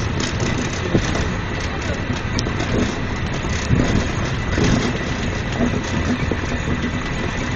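Steady running noise of a moving sightseeing tour vehicle, with faint voices in the background.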